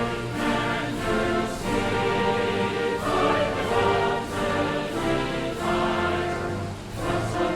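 Music: a song's accompaniment with held notes over a bass line that changes every half second or so, possibly with voices blended in.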